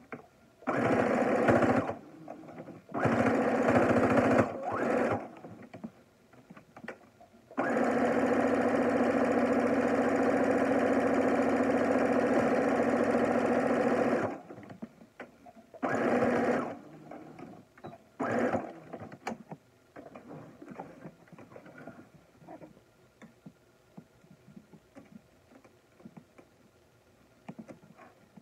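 Electric sewing machine stitching in stop-and-start runs: a few short bursts, one long steady run of about seven seconds in the middle, then two more brief bursts, as a straight stitch is sewn around the edge of a cloth face mask. After the last burst there is soft fabric rustling and a few light clicks.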